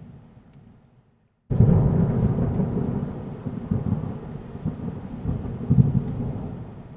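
Thunderstorm sound: a low rumble with rain noise. It fades out, drops to silence about a second in, then cuts back in suddenly with a loud rumble that swells again several times and slowly dies away.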